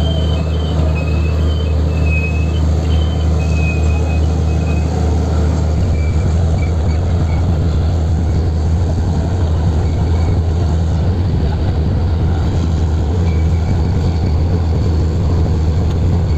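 Fishing boat's engine running steadily, a loud, low drone; about six seconds in, the lowest hum deepens.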